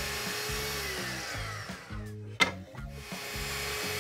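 Festool Kapex sliding miter saw crosscutting poplar stock: the motor runs, then winds down in pitch about a second in. A single sharp knock follows a little past halfway, and the saw starts up again after about three seconds. Background music with a steady beat plays throughout.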